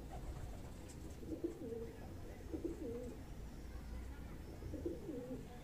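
Domestic pigeon cooing: a few low, warbling coo phrases with pauses between them.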